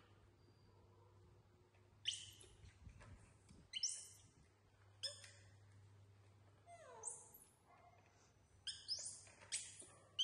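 Young macaque monkeys giving short high-pitched squeaks and chirps at intervals, with one call that slides down in pitch about seven seconds in.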